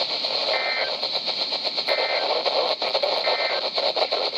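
Three short, identical two-tone data bursts of the EAS SAME end-of-message code, a little over a second apart, over the steady hiss of NOAA Weather Radio reception. They mark the end of the weather warning broadcast.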